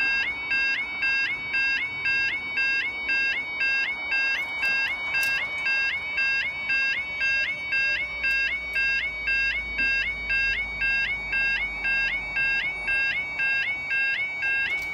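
Railway level crossing audible warning alarm sounding a steady two-tone warble, flipping between a lower and a higher note about twice a second, while the barriers lower for an approaching train.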